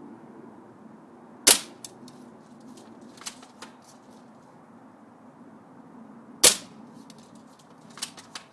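Spring-powered L85 airsoft BB rifle firing two shots about five seconds apart, each a sharp crack. Lighter clicks and knocks come between them and near the end.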